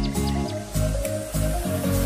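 Background music with a deep bass line of held notes that change every fraction of a second.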